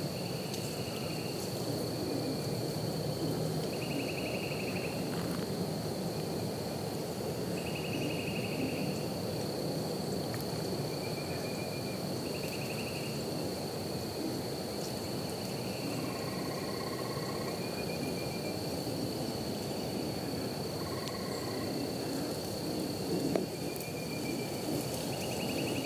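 Woodland ambience: a steady high-pitched drone and a low, even rush, with short trilled calls repeating every few seconds. A few lower short notes come in around the middle.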